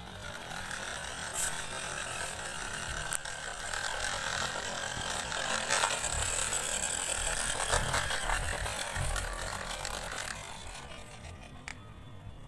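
Small electric motor and plastic gears of a 1:24 scale remote-control toy car whirring as it drives, with a few clicks. It grows louder toward the middle and fades near the end.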